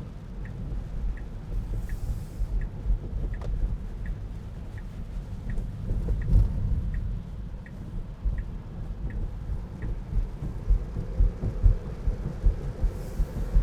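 Tesla Model 3 turn signal ticking steadily, about three ticks every two seconds, stopping about ten seconds in. Underneath is a steady low rumble of road noise in the cabin of a car driving in the rain, with two brief hissing swishes.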